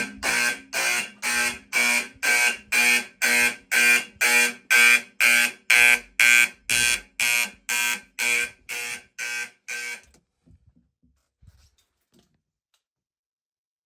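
A fire alarm horn on a homemade relay-driven fire alarm system, set off by a pull station, pulsing in march time at about two blasts a second. It grows gradually quieter and stops about ten seconds in.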